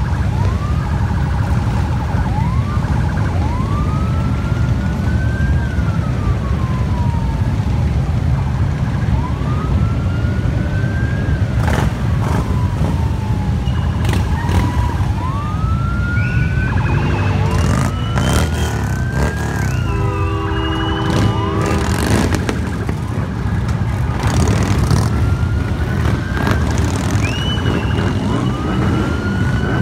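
Low, continuous rumble of a large column of motorcycle engines riding past, under a siren wailing in slow rising and falling sweeps, one about every three to four seconds. About twenty seconds in, a horn sounds a steady chord for a couple of seconds.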